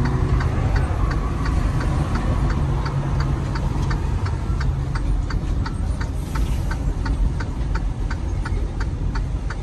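Inside a semi truck's cab: the truck's engine and road noise rumble low and steady under the even clicking of the turn signal, about three ticks a second, as the truck takes an exit.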